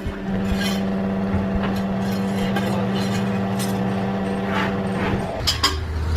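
A machine running with a steady hum and a few scattered metallic knocks. About five seconds in, the hum drops to a lower, louder pitch.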